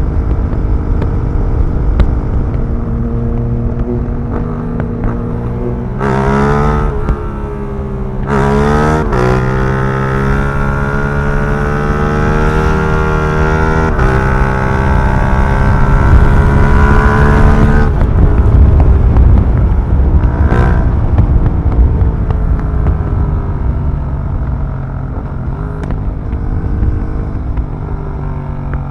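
Yamaha MT-07's parallel-twin engine through an Akrapovic racing exhaust, running steadily and then accelerating hard. The pitch climbs with two quick breaks for upshifts, rises for about nine seconds in one gear, and cuts off suddenly when the throttle closes, after which the note falls away.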